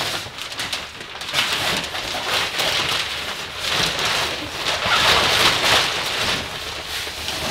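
Plastic wrap and a large black plastic bag rustling and crinkling as a plastic-wrapped goose decoy is worked down into the bag, rising and falling in loudness as the plastic is handled.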